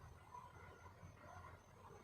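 Near silence: a faint low background rumble between junglefowl calls.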